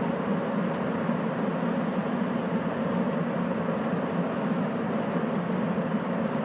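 Sapporo Municipal Subway Tozai Line 8000 series train running steadily between stations, heard from inside the car: an even rumble of its rubber tyres on the track through the tunnel.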